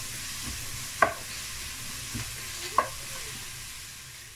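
Diced vegetables sizzling in hot oil over a high flame while being stirred with a wooden spatula. The spatula knocks sharply against the pot twice, about two seconds apart.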